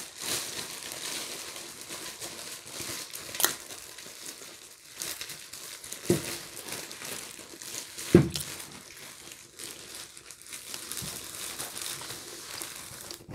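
Packaging crinkling and rustling as it is handled close to the microphone, with a sharp click about three and a half seconds in.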